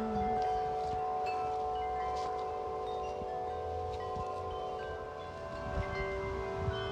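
Several large tubular wind chimes, Corinthian Bells among them, ringing together in gusty wind: long, overlapping sustained tones, the deepest and loudest low and bell-like. Wind rumbles on the microphone underneath.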